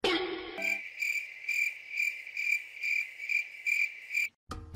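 An insect trilling: a steady high-pitched trill that swells in even pulses two to three times a second, after a brief pitched sound at the very start, and cuts off suddenly near the end.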